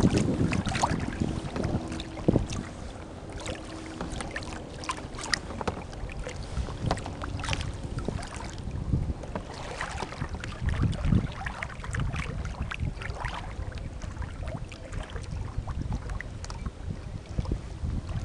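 Wind rumbling on the microphone, with small waves and paddle water splashing and slapping irregularly against a kayak's bow as it moves across choppy water.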